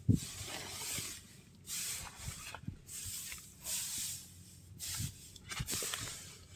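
Dry straw bedding rustling in several swishes about a second apart as it is pushed aside in a search for eggs, with a few soft knocks.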